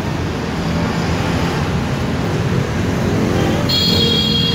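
Steady rumble of passing road traffic. About three and a half seconds in, a high ringing tone starts suddenly and holds for about two seconds.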